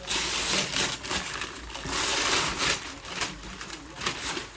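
Gift wrapping paper being torn and crumpled by hand, in two loud surges of rustling with quieter crinkling between.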